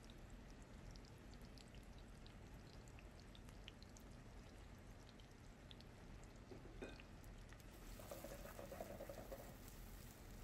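Faint sizzling of sliced red onions frying in oil on a low flame, with light scattered crackles. A brief louder noise comes about eight seconds in.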